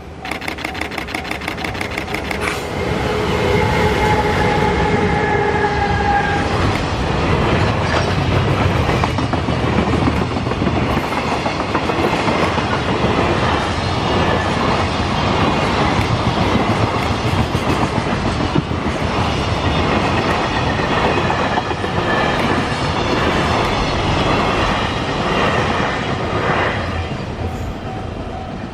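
A JR Freight EH500 electric locomotive passes at the head of a container freight train, with some pitched whine for the first few seconds. A long, steady rumble and clickety-clack of the container wagons' wheels follows and eases off near the end, over the ringing warning bell of a level crossing.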